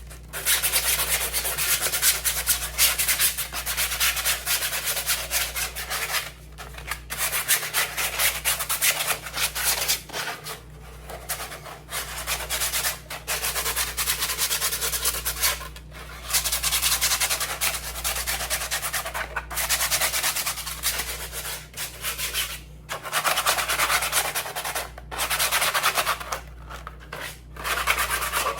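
Sandpaper rubbed by hand over a 3D-printed plastic helmet, a scratchy hiss in long runs of back-and-forth strokes broken by short pauses every few seconds.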